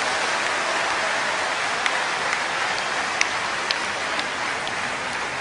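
A large crowd in a big hall making a dense, even wash of noise that slowly dies down, with a few short sharp sounds standing out now and then.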